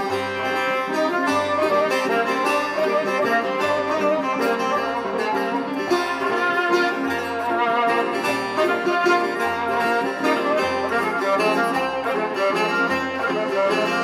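Background music: an instrumental track with plucked strings over a steady, regular bass beat.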